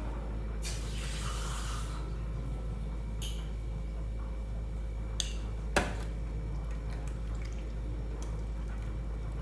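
Water running briefly for about a second, fetched to thin a batter. A few clinks and knocks of kitchen utensils follow, the sharpest about six seconds in.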